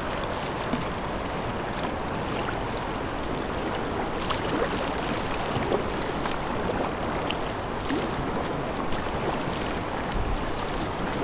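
Steady rush of river water running through shallow rocky rapids, heard from a kayak on the water, with a few small splashes of paddle strokes.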